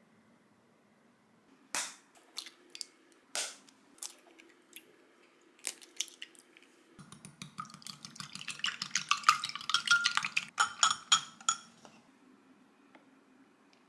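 Eggs being tapped and cracked open, several sharp separate cracks. About seven seconds in this gives way to a thin wire whisk beating the eggs fast in a glass bowl, clinking against the glass. The whisking is loudest just before it stops, about two seconds from the end.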